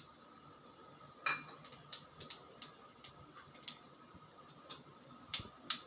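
Cumin seeds spluttering in hot sesame oil in a kadai: irregular sharp pops over a faint steady sizzle. A single metallic clink comes about a second in.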